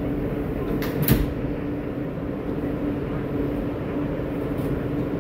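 New York City subway train running, heard from inside the front car: a steady rumble with a steady hum, and a sharp wheel clack about a second in, with a fainter one near the end.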